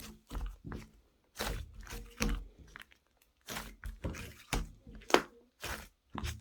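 A string of irregular short crunching and rustling handling noises, each with a low thud.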